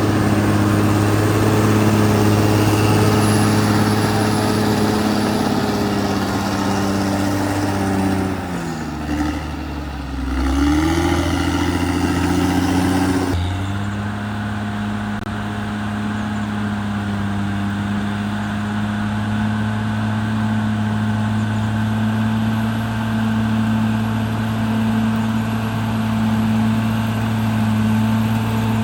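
CAT D6R XL bulldozer's diesel engine running steadily. About eight seconds in, the engine speed drops sharply and then climbs back up about two seconds later, then settles to a steady run.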